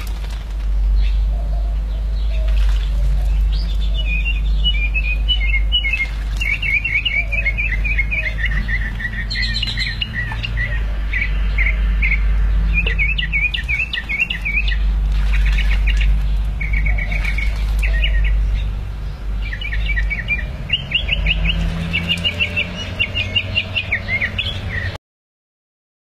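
Songbirds chirping in quick runs of repeated high notes, over a steady low rumble. The sound cuts off suddenly about a second before the end.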